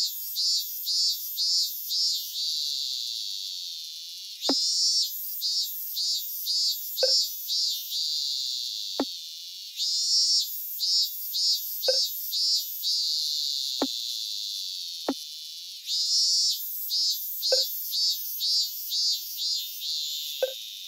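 Cicada song: phrases of rapid high pulses that run into a steady buzz, each starting again about every six seconds. Eight short pop sound effects fall over it at irregular intervals, one for each chat message appearing.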